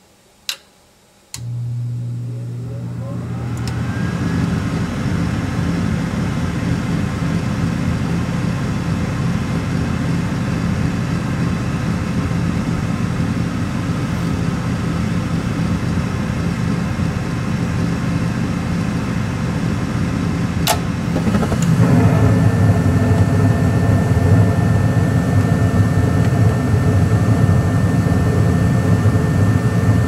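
A gas furnace's draft inducer motor starts after a click, about a second in, humming with a whine that rises as it spins up, then runs steadily while the hot surface igniter heats. About 21 seconds in there is a sharp click and the gas burners light, and the running sound grows louder and fuller: the furnace now lights normally.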